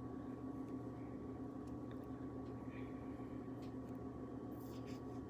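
Soft, scattered little clicks and crackles of a grapefruit's peel and membranes being pulled apart by fingers, over a faint steady hum.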